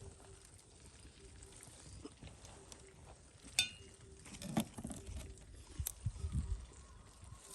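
A sharp metallic clink with a brief ring about three and a half seconds in, followed by a few duller knocks and handling bumps, as metal cookware is handled.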